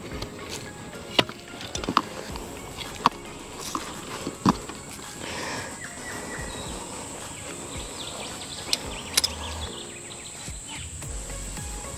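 A few sharp metallic clicks and knocks from a steel wild dog trap being handled, two of them close together near the end. Under them runs a steady high-pitched insect drone.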